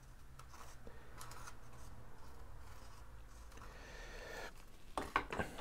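Faint rubbing and rustling of EPO foam model-airplane parts being handled with a glue tube, with a few sharp clicks about five seconds in.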